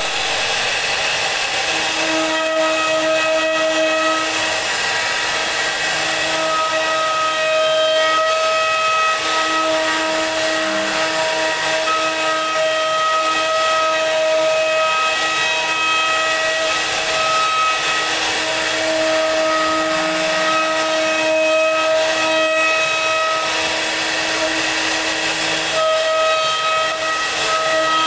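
CNC router spindle whining at high speed as its bit carves a wooden board, over a steady hiss of cutting. The whine drops out briefly several times and comes back.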